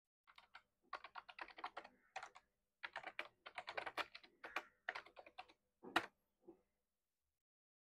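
Typing on a computer keyboard: a quick, uneven run of keystrokes, then one louder click about six seconds in as the edited question is submitted.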